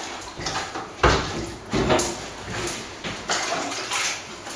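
A wide brush dipped in a plastic bucket of water and swished onto bare brickwork, wetting the wall down before lime plastering: several separate splashy strokes, the loudest about a second in.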